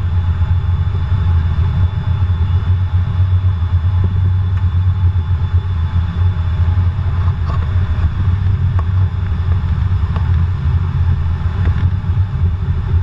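Cockpit noise of an RAF Eurofighter Typhoon rolling along the runway: a steady low rumble of engine and airframe with a faint steady whine above it.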